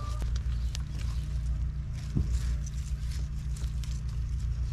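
Light rustling and crackling of a geranium and potting soil being handled in a coco-fibre-lined window box, over a steady low rumble.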